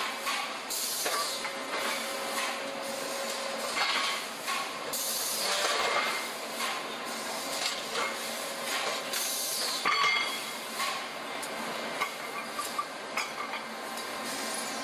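Industrial straightening machine working a square steel bar: irregular metallic clinks and knocks, some with a brief ring, over a steady hiss of machine noise.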